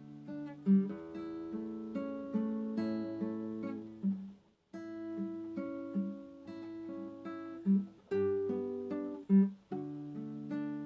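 Acoustic guitar (violão) playing a slow, calm piece of plucked notes and chords, with a brief silent break about four seconds in before the playing resumes.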